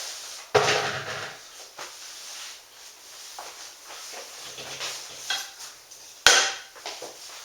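Kitchen handling sounds as cooked ground beef is spread out on a dehydrating tray: small scrapes and clicks of a utensil on the tray, with two loud clunks, one about half a second in and one about six seconds in.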